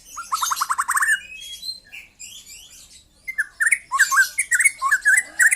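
Young white-rumped shama singing: a fast run of about eight repeated rising notes in the first second, a few scattered notes, then a busy string of varied whistled and harsh notes over the last two seconds.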